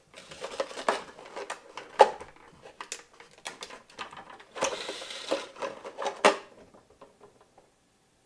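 A container being handled while a shoelace is threaded through holes in it: irregular clicks, taps and rustling, with a short scraping stretch about halfway. It stops a little before the end.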